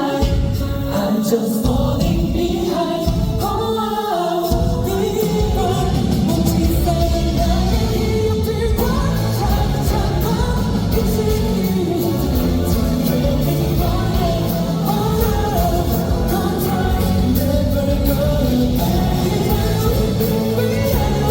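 Pop song sung by a male singer over band accompaniment through a concert sound system; the full accompaniment with bass and drums comes in about four seconds in.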